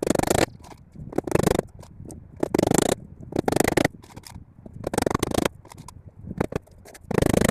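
A series of short rasping scrapes, six of them, each under half a second and coming roughly once a second.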